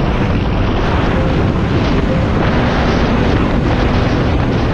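Steady wind noise buffeting the action camera's microphone on a motorcycle riding at road speed, with the motorcycle's engine running underneath.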